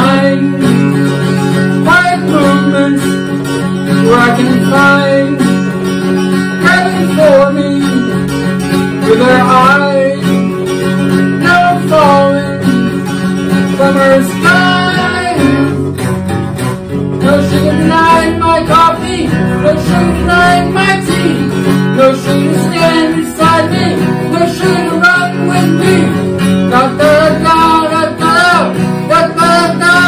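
Acoustic guitar strummed steadily, with a man singing over it.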